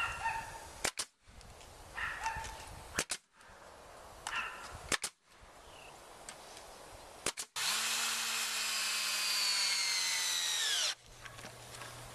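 Pneumatic coil nailer firing nails into a wooden fence post: sharp shots in quick doubles about two seconds apart, then a quick triple. After that comes a loud hissing whine that falls in pitch for about three seconds and stops abruptly.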